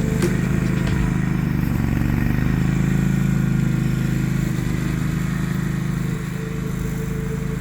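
Small engine of a grass-cutting machine running steadily at working speed.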